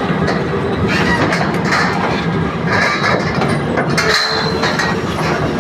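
Excavator working: steady engine and machine noise throughout, with a brief dip in the low rumble about four seconds in.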